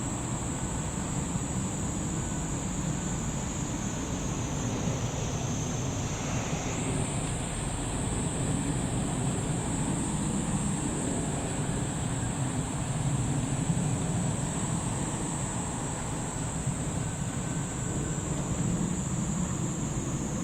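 Steady insect chorus: a continuous high-pitched drone that shifts slightly higher about seven seconds in, over a steady low background rumble.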